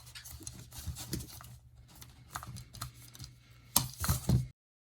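Light, scattered clicks and taps of small plastic headphone parts being handled, with a few louder knocks about four seconds in.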